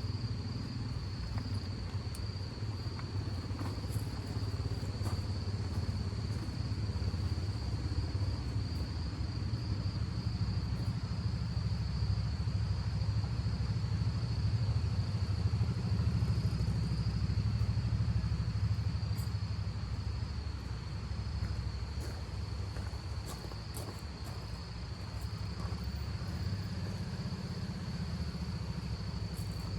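Crickets keep up a steady, high-pitched chirring over a low rumble of wind gusting, which swells towards the middle and then eases off.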